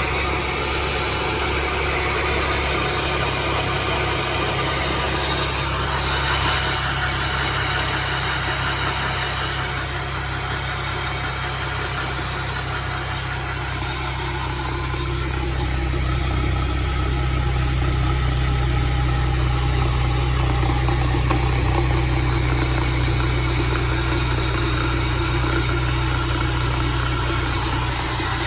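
Car engine running steadily at idle, with an abnormal noise from the transmission that the owner is recording.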